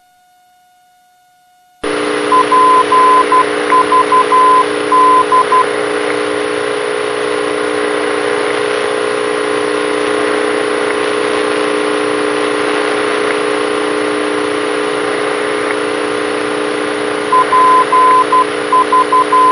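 A Morse code navigation-station identifier, a single steady tone near 1 kHz keyed in dots and dashes, comes over the aircraft's audio panel. It plays for about three seconds just after the start and again near the end. Under it is the steady drone of the single-engine Cessna's engine and propeller heard through the headset intercom, which cuts in abruptly about two seconds in after a near-silent start.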